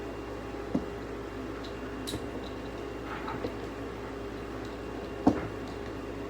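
A few sharp clicks and knocks, the loudest about five seconds in, over a steady low hum in a small room.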